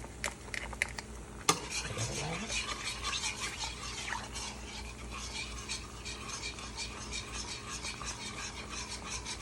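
A utensil stirring and scraping in a pan of melting butter and minced garlic: a sharp knock about a second and a half in, then a steady run of quick scrapes against the pan.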